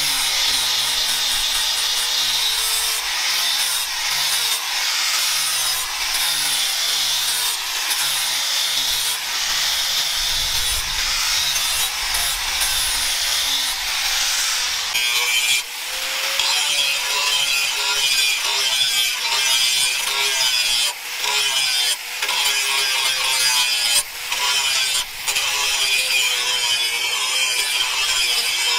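Angle grinder running with its abrasive disc pressed against a steel knife blade: a steady, high grinding hiss over the motor's whine. The grind briefly drops out several times in the second half as the disc comes off the steel.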